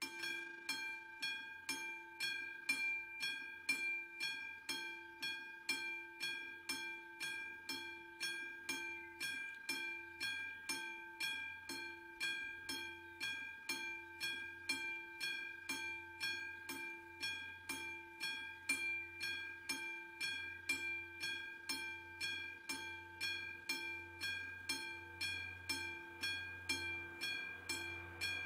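Level-crossing warning bell, the classic bell on a Czech PV-type crossing, starting up suddenly and striking steadily about twice a second with a clear ringing tone. It is the warning that a train is approaching.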